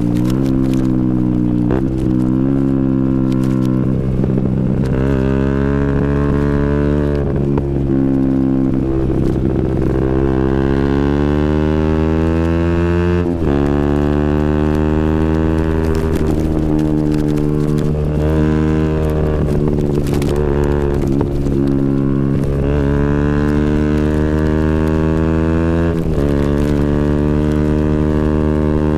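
KTM Duke 125's single-cylinder four-stroke engine running through a Scorpion exhaust with the dB killer removed, riding along with the revs climbing and falling through several gear changes. There are sharp breaks about 2 s in, about 13 seconds in and again near the end.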